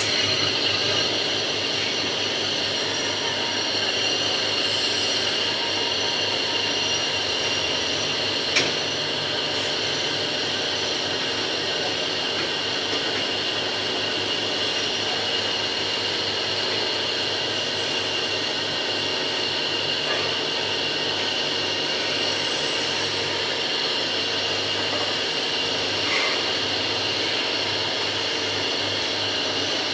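Crane truck's 24V hydraulic lift system running steadily with a constant high-pitched whine. There is a single sharp click about eight and a half seconds in.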